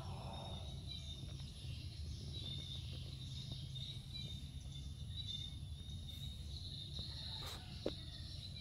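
Background ambience: a steady low hum with faint high-pitched chirps coming and going, and a single short click near the end.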